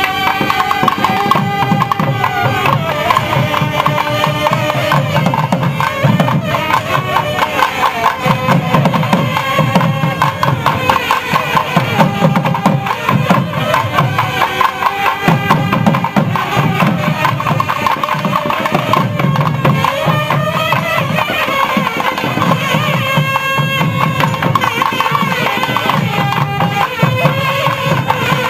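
Nadaswaram ensemble, several long double-reed pipes playing a wavering, bending melody together, over a steady beat on drums.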